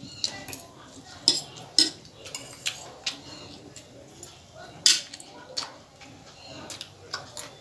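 Cutlery clinking and tapping against a plate during a meal of chowmein: a dozen or so sharp, separate clinks, the loudest about five seconds in.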